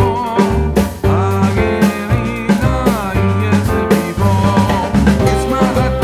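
Background music: a song with a steady drum beat and a wavering melody line.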